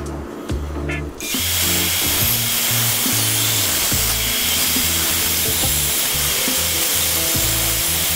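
Bandsaw running, its blade cutting through plywood along a traced circle; the steady cutting noise comes in suddenly about a second in, over background music.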